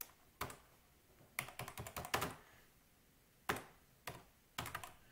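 Computer keyboard typing in short, uneven bursts of keystrokes with pauses between.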